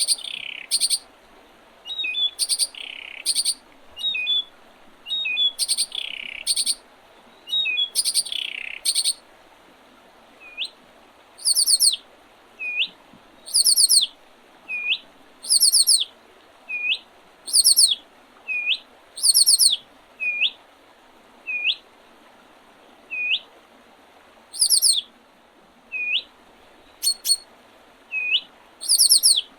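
Songbirds singing: repeated very high, thin phrases with descending notes, then from about ten seconds in a short upslurred note repeated about once a second, over a faint steady hiss.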